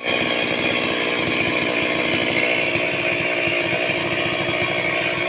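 Stihl chainsaw running steadily at high speed.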